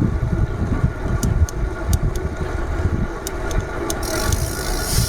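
Wind buffeting the microphone and road rumble on a bicycle ride, with a steady engine hum from nearby road traffic and scattered sharp ticks.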